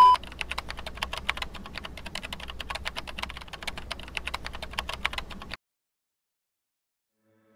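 Computer-keyboard typing sound effect: a rapid run of key clicks, roughly ten a second, keeping time with on-screen text being typed out. It cuts off suddenly about five and a half seconds in.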